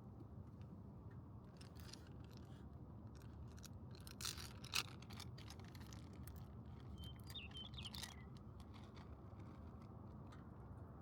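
Faint ambience: a low steady hum with scattered small clicks and handling knocks, the loudest a sharp knock about five seconds in. A few faint bird chirps come past the middle.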